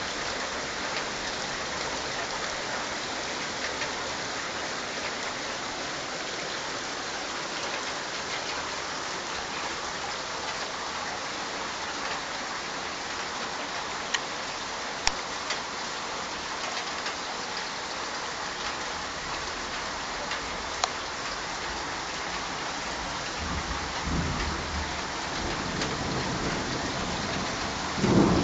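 Torrential rain pouring steadily, with a few sharp ticks of drops close by. In the last few seconds a low rumble of thunder builds to a loud clap.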